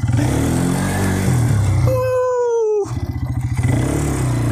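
Small quad bike (ATV) engine running as it is ridden, its revs rising and falling. About two seconds in, the engine sound is briefly broken by a short, clear falling tone.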